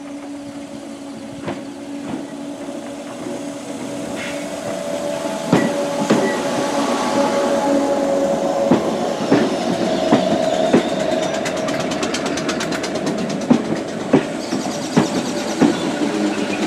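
Merseyrail Class 507/508 electric multiple unit running into the platform, getting louder as it comes alongside, with a steady hum. From about five seconds in, its wheels click over rail joints at irregular intervals.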